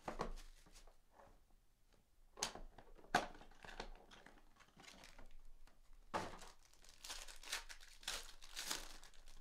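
Plastic wrapping of a sealed trading-card pack being torn open and crinkled, in several short rustles, the sharpest about three seconds in.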